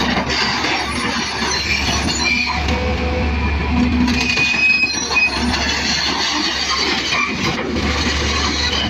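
Excavator's diesel engine running steadily under load, with high metallic squeals about two and a half and five seconds in and clanks from its steel tracks as it moves onto the trailer.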